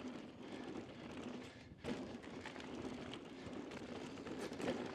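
Mountain bike rolling fast down a dusty dirt trail: steady rushing tyre-on-dirt noise with light rattle from the bike, dipping briefly about two seconds in.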